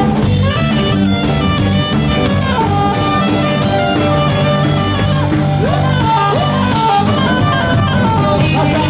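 Live band music: a saxophone playing the lead over a drum kit and electric guitar, loud and steady.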